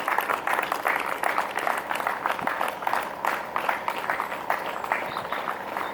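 Crowd applauding, the clapping thinning and growing quieter toward the end.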